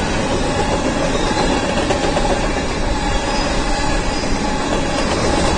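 A fast freight train's covered hopper cars rolling past on the rails, giving a steady, loud rumble of steel wheels on track that holds even throughout.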